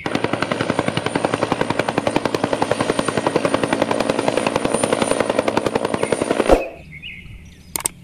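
A helicopter flying: the rapid, even beat of its two-bladed main rotor, with a high steady turbine whine on top. The sound cuts off suddenly about six and a half seconds in.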